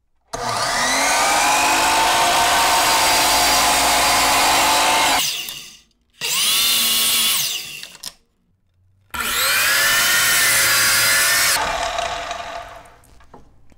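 DeWalt DW716 12-inch miter saw running three times as it crosscuts plywood into triangles: the motor whines up, its note sags as the blade goes through the wood, and after the last run the blade winds down. The first run is the longest, about five seconds, the second short.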